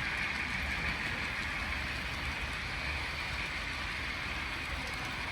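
HO-scale model train running along the track: a steady whir of the locomotive's motor and wheels on the rails.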